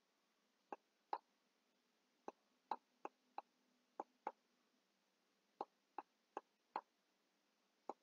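About a dozen faint, sharp clicks at uneven spacing, from the computer input device as handwritten pen strokes are drawn on a digital whiteboard.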